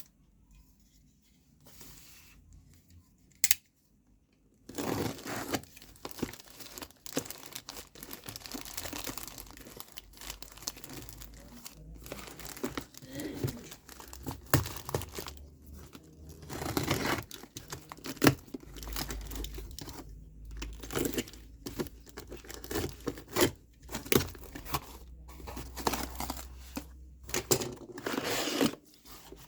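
A parcel's packaging being torn and crinkled open by hand: irregular ripping and rustling with many sharp clicks, starting about five seconds in.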